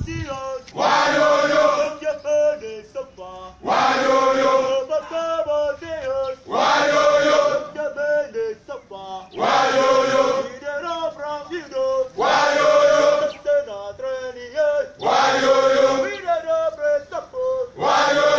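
A group of men chanting a call-and-response drill song: a single leader sings a line and the whole group answers loudly, about every three seconds.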